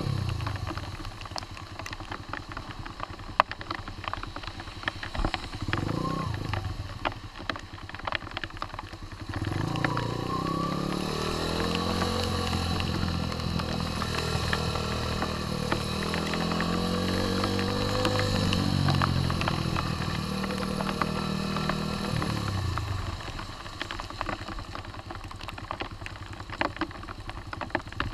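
Sinnis Apache 125's single-cylinder engine while riding: ticking over quietly for the first several seconds, then pulling harder from about a third of the way in with its pitch rising and falling as it accelerates and shifts, easing off again later and revving up right at the end. Scattered sharp ticks run through the quieter stretch.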